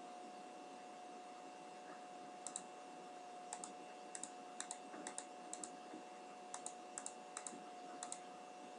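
Faint computer clicking: about a dozen sharp clicks, most in quick pairs like a press and release, starting a couple of seconds in and stopping near the end. A steady faint hum runs underneath.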